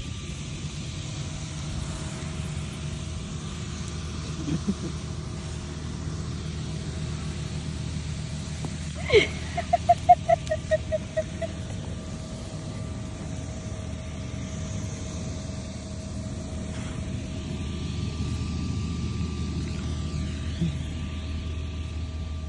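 Steady low rumble of vehicles and running machinery, with faint constant hum tones over it. About nine seconds in, a short falling sweep is followed by a quick run of about ten chirping tones over roughly two seconds.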